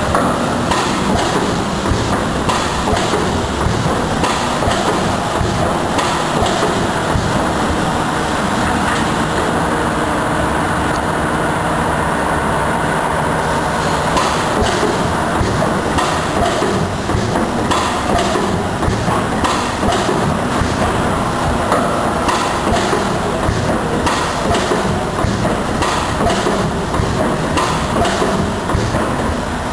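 Coil-fed sheet-metal press line running, its notching, drawing and cutting presses striking the steel strip in a series of repeated knocks over a steady mechanical clatter.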